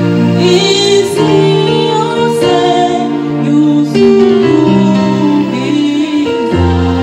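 A woman singing a Kinyarwanda gospel worship song into a microphone, with instrumental backing holding long steady chords beneath her voice.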